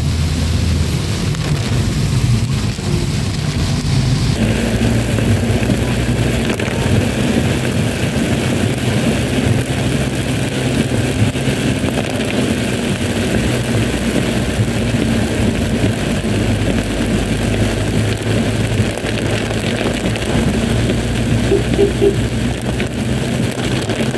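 Inside a car driving on a wet road in heavy rain: steady engine hum and tyre hiss, with rain beating on the windshield. The hiss grows louder about four seconds in.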